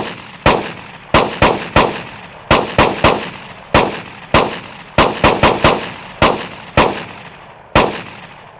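Glock 18 9 mm pistol firing about seventeen shots at an uneven pace, some singly and some in quick pairs and triples, each crack followed by a short echoing tail.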